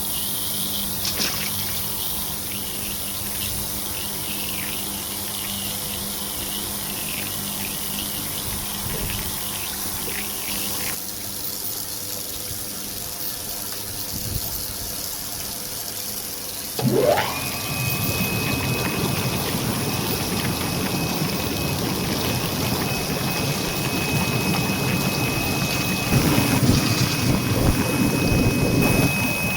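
Industrial broccoli washing machine running, water flowing and splashing in its tank over a steady electrical hum. About 17 seconds in, a motor starts with a rising whine that settles into a steady high whine, and the water churns louder from then on.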